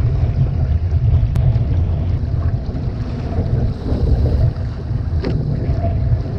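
Wind buffeting the microphone in a loud, steady low rumble, over water rushing and splashing along the hull of an OC-1 outrigger canoe running downwind through chop. A single sharp click a little over a second in.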